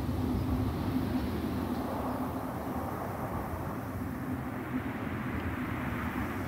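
Steady low rumbling noise with a faint hum, without breaks.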